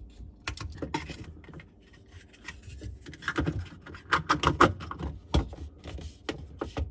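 Plastic control box of a touchless kitchen faucet being pushed and worked into its mount on the cabinet wall: irregular clicks, knocks and rubbing, coming in two quick clusters around the middle, with one sharp knock near the end.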